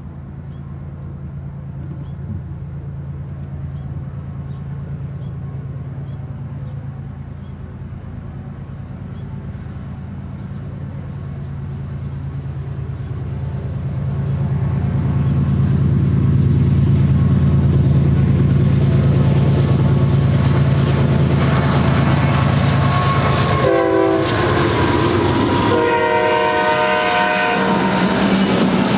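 BNSF freight train with GE diesel locomotives approaching and passing. The engines' low drone grows louder as they near. The horn sounds twice near the end, the second blast longer, while the wheels clatter over the rails as the cars roll by.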